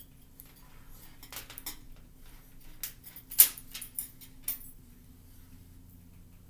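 Scattered clicks and light taps from a marker and whiteboard being handled while letters are erased and written. The sharpest click comes about three and a half seconds in, over a faint steady hum.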